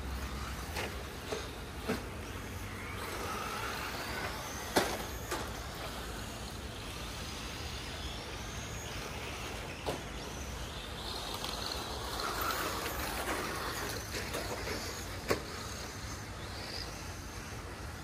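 Electric motors of RC rally cars whining as they speed up and slow down around a dirt track, with tyre noise and a couple of sharp knocks, the loudest about five seconds in.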